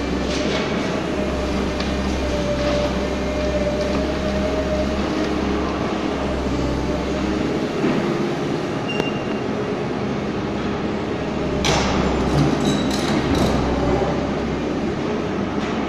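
Tracked excavator's diesel engine and hydraulics running steadily in an enclosed hall, with a wavering hydraulic whine, while loading soil into a steel tipper body. A short cluster of sharp knocks about twelve seconds in.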